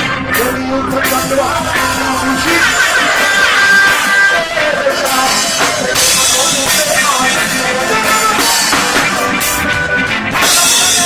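Loud live dancehall music with a drum beat and a vocal line.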